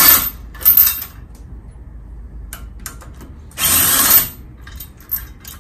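Power tool run in three short bursts, with light clicks of tools in between.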